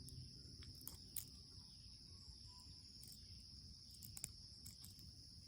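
Faint, scattered metallic clicks of bobby pins working the seven pin tumblers of a PacLock 90A-Pro padlock during picking. Two light ticks come about a second in and two more about four seconds in, over a steady high-pitched whine.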